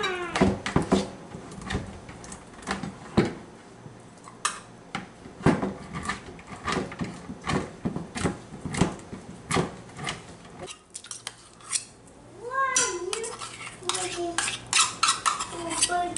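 Metal spoon clinking and scraping against a stainless measuring cup while solid coconut oil is scooped from a bucket and scraped into a crockpot: a run of irregular sharp clinks.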